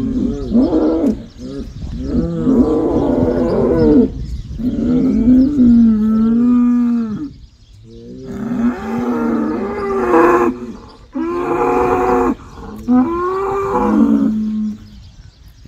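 Black bulls mooing in turn: about six long calls that rise and fall in pitch, with a short pause about halfway through.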